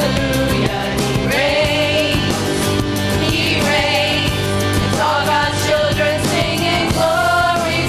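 A women's vocal group singing a gospel song in harmony, holding long notes with vibrato over an instrumental accompaniment with a steady beat.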